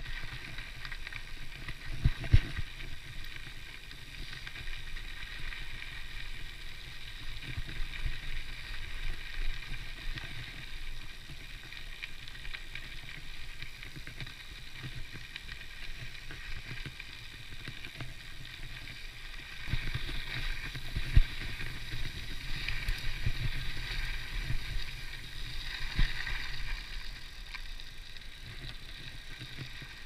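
Mountain bike rolling along a dirt and gravel track: a steady tyre rumble with a few sharp knocks, and the high freewheel buzz of a Hope Pro 4 rear hub, louder in the second half.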